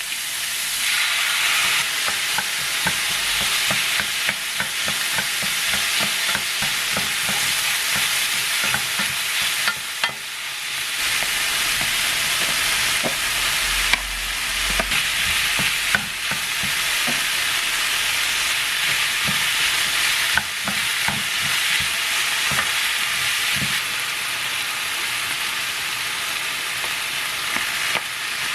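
Food sizzling in a frying pan while it is stir-fried, a spatula clicking and scraping against the pan again and again over a steady hiss of frying.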